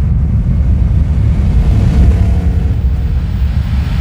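Logo-intro sound effect: a loud, steady low rumble, with a hiss beginning to swell into a whoosh near the end.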